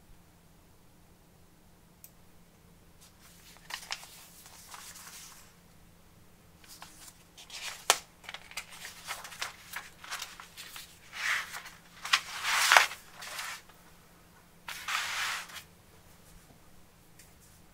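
Paper parts list and instruction booklet of a plastic model kit being handled and their pages turned: rustling and flapping in several bursts, with a couple of sharp snaps.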